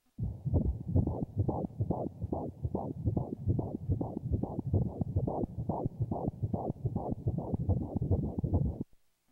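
Pulsed-wave Doppler audio from a SonoAce R7 ultrasound machine, sampling the fetal heartbeat at 16 weeks: a fast, regular whooshing pulse of about two and a half beats a second (around 155 per minute, a normal fetal heart rate). It starts just after the beginning and cuts off suddenly near the end.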